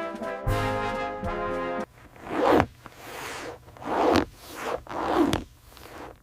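A held brass chord in the soundtrack music cuts off about two seconds in. It is followed by a series of rasping swishes, about one a second, like a cloth or pad being rubbed in strokes.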